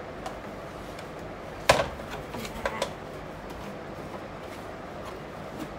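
A digital kitchen scale is set down on a wooden tabletop with one sharp knock about two seconds in, followed by a few lighter clicks and taps as it is handled and switched on.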